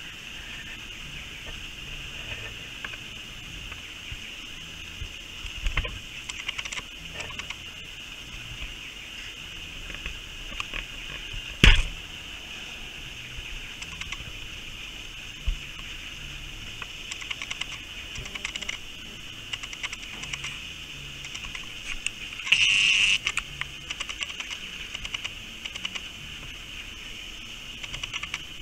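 A wallaby chewing and crunching on a piece of fried chicken: scattered small crunchy clicks over a steady high-pitched background drone. There is one sharp knock about midway.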